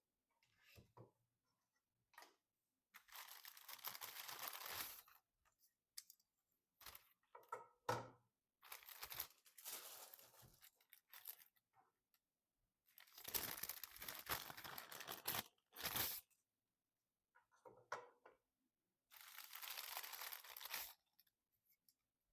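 Packaging being torn and crinkled: four long tearing strokes of about two seconds each, with small clicks and taps between them.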